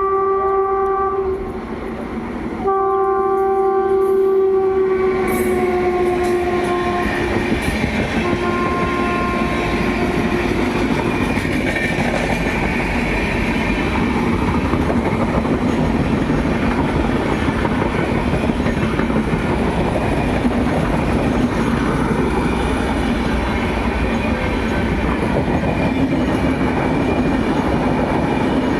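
Indian Railways express train's horn sounding two blasts. The first is short, and the second is longer and drops slightly in pitch before fading out. The train then runs on with a steady rumble and clickety-clack of wheels over rail joints.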